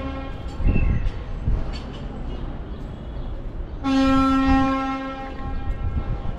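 A horn sounding: a brief toot right at the start, then one long steady note of nearly two seconds about four seconds in. Low thumps sit underneath.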